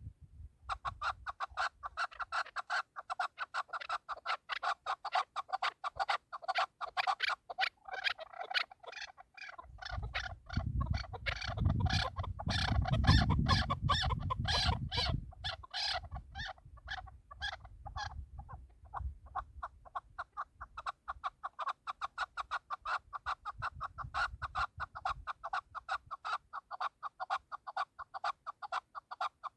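Chukar partridge calling, a long run of rapid clucking notes repeated several times a second. A low rumble joins in midway and is the loudest part.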